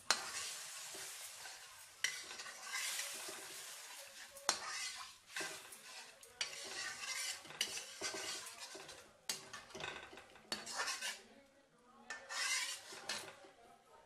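Perforated steel skimmer stirring and scraping thick curry masala in a steel wok, metal rasping on metal in irregular strokes, over the gravy sizzling in hot oil.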